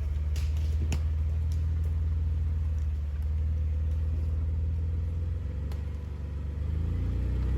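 Off-road vehicle's engine running low and steady while crawling on rock, with a few short sharp clicks; the engine note dips and then builds near the end.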